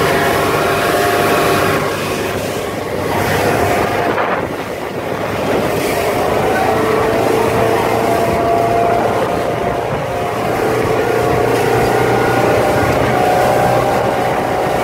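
Motorboat engine running steadily at speed, with wind buffeting the microphone.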